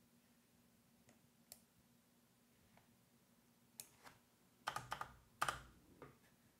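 Computer keyboard keystrokes, faint and sparse: a few single key clicks, then a quick run of presses about five seconds in, as lines of text are selected and deleted.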